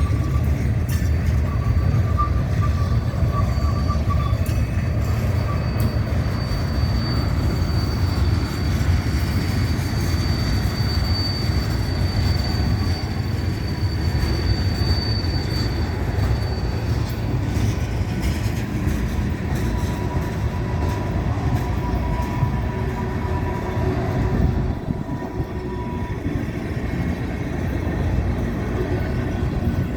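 Freight train cars rolling past in a steady low rumble. Thin, drawn-out wheel squeals rise over it: a high one held for about twelve seconds from a few seconds in, and a lower one later on.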